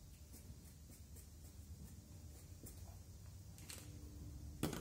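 Felt-tip marker scribbling small circles on a paper towel: a faint scratchy rubbing with light ticks. A sharp click near the end.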